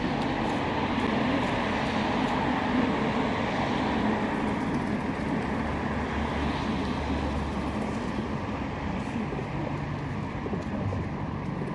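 Steady background road traffic, a low, even rumble with no distinct events standing out.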